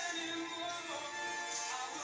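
Background music: a song with a melodic singing voice over instruments.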